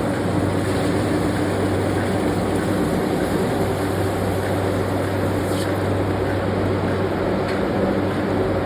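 Steady machinery drone with a low hum, running evenly throughout, with two faint clicks near the end.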